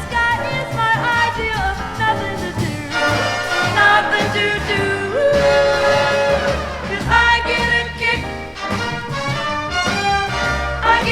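Swing-jazz music with no lyrics sung, played from a vinyl LP.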